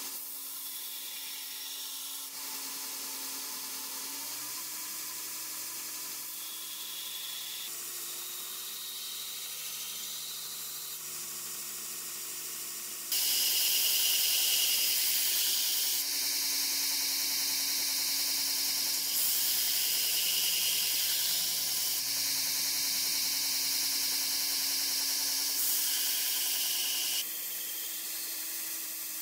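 Belt grinder running with a steel knife blade pressed against the abrasive belt, grinding the edge: a steady hiss, louder and brighter through the middle half.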